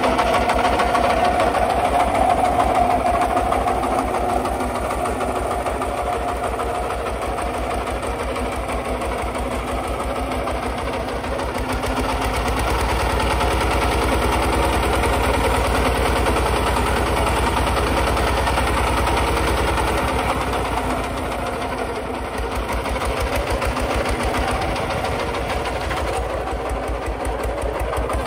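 Kubota RT140 walk-behind tractor's single-cylinder diesel engine running steadily under load as it pulls a plow through dry soil, with an even pulsing beat. The low thump grows stronger for several seconds in the middle, then eases.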